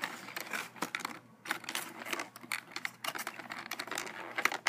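Irregular small clicks and crinkles of toy packaging being handled as fingers work at the wire twist tie that holds a plastic spoon in the box.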